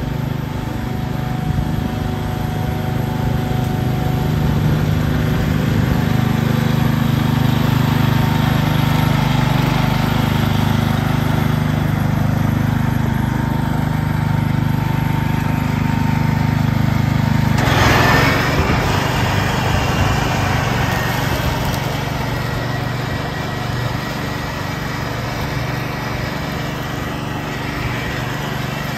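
1969 Ford 140 garden tractor's engine running at a steady speed, used for mulching leaves. A bit over halfway through, a sudden rush of noise joins in, and after it the engine's even note sounds rougher.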